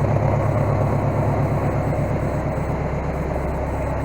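Case skid steer's engine idling steadily with a low, even drone.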